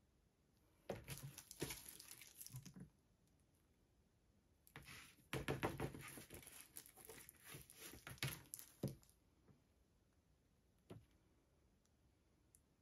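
Plastic-gloved hands rustling and crinkling while handling and tilting a stretched canvas on its stands, with several light knocks. The noise comes in two stretches, about a second in and again from about five to nine seconds, with a single click near the end.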